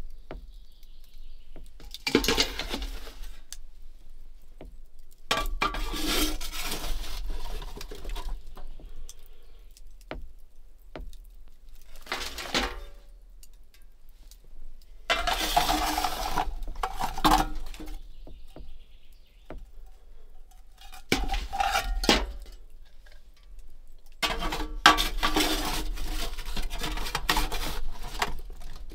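Long-handled metal ash scoop scraping ash and embers out of a small steel wood stove's firebox and tipping them into a metal bucket: six bouts of scraping and clinking a few seconds each, with short pauses between.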